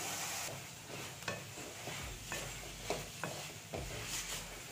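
Wooden spatula stirring diced carrots and beans in a metal pan of frying masala, scraping and knocking against the pan about twice a second over a soft sizzle. The stirring starts about half a second in.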